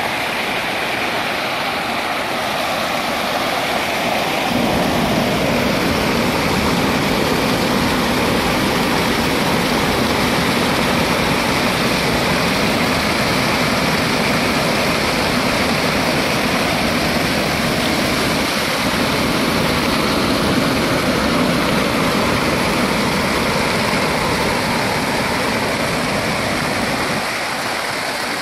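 Floodwater pouring over a concrete dam spillway: a steady rushing of falling, foaming water. It grows louder and deeper from about four seconds in and eases slightly near the end.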